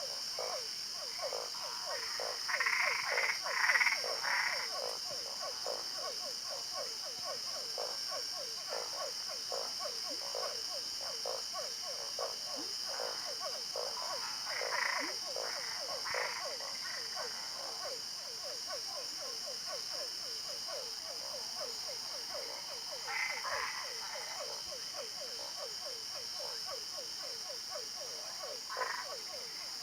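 Frogs calling: a continuous rapid series of short croaks, several a second, with louder, higher-pitched calls breaking in a few times.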